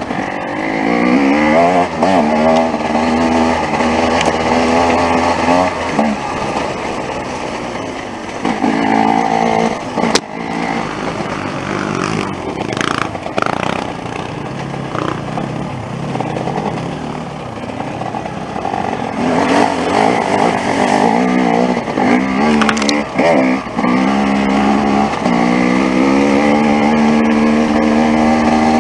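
Off-road motorcycle engine running under load, its note rising and falling with the throttle as it rides a rough dirt trail. A few short, sharp knocks cut in along the way.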